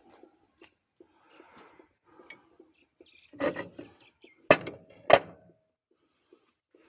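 Metal parts being handled: light clicks and a scrape, then two sharp metallic knocks, the second ringing briefly.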